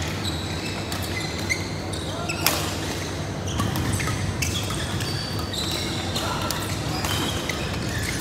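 Badminton rally: sharp racket-on-shuttlecock hits, the loudest about two and a half seconds in, with short squeaks of court shoes on the mat, over a steady background of chatter in a large echoing hall.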